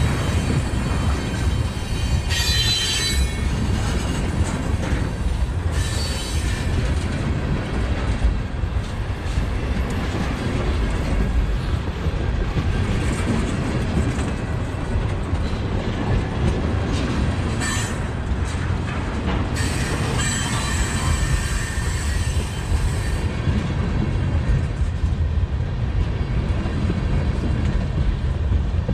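Freight cars of a slow-moving mixed freight train rolling past with a steady, loud rumble of wheels on rail. Brief high wheel squeals ring out about two to three seconds in and again about twenty seconds in.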